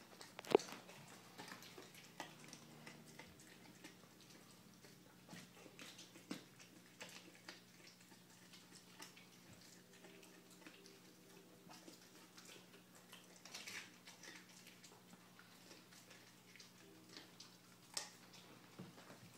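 A dog chewing a raw chicken leg quarter: faint, irregular wet clicks and crunches, with a few sharper cracks, the loudest about half a second in and another near the end.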